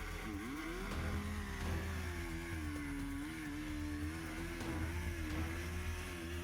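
An engine running with its pitch swinging up and down as it revs, over a steady low hum.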